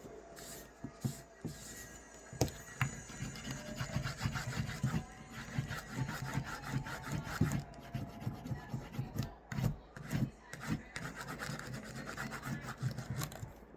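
Leather sheath edge being rubbed by hand: a run of short, irregular rubbing strokes with a few light knocks, the sound of the edge being burnished smooth.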